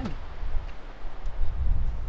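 Wind buffeting the microphone: a low, uneven rumble that rises and falls, with a couple of faint ticks.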